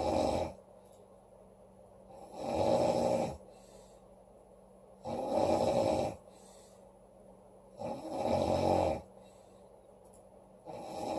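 A woman snoring loudly in a steady rhythm. Each snore on the in-breath lasts about a second and comes roughly every three seconds, most followed by a softer breath out.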